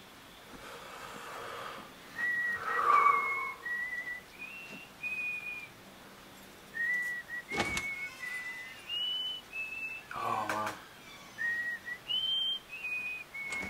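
A person whistling a tune: a string of short, clear notes stepping up and down in pitch. A brief louder rush of noise about three seconds in and a sharp click a little past the middle.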